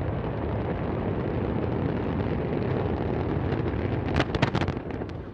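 Antares rocket's engines roaring steadily during ascent. A short burst of loud crackling comes about four seconds in.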